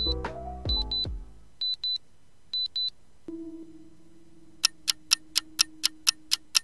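Quiz countdown-timer sound track: a short music phrase ends about a second in, paired high beeps repeat, then a held low tone. About halfway through, a fast clock ticking starts, about four ticks a second.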